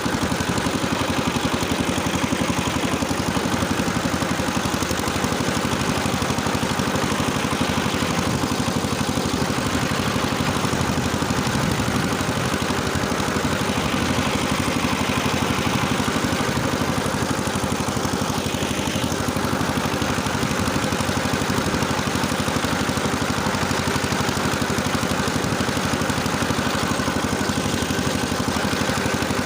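Engine running steadily and evenly while powering a rotary tiller working the soil.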